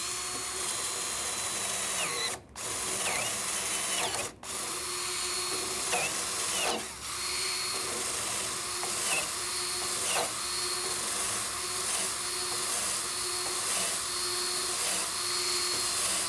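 Drill spinning a pen-blank barrel trimmer that cuts the end of a wooden blank flush with its glued-in brass tube: a steady machine whir with the cutter scraping wood. It stops for a moment twice in the first few seconds.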